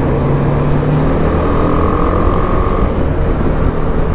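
A BMW G 310 GS's single-cylinder engine running steadily at highway cruising speed, with wind rumbling on the microphone. A truck is overtaken.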